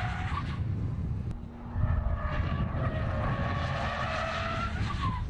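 Hyundai Veloster's tyres squealing as the car slides hard through turns, with its engine running underneath. One squeal fades out about half a second in, and a longer one starts about two seconds in and drops in pitch just before it stops near the end.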